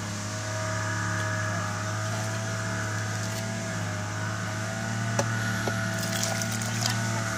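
A motor running steadily at an even speed, with a few light knocks and clicks about five to seven seconds in.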